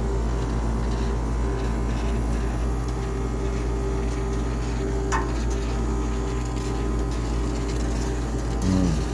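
High-pressure steam cleaner running steadily with a low, even machine hum, its pump and motor droning while a washing machine is steam-sterilised. A brief high chirp comes about five seconds in, and a short falling tone near the end.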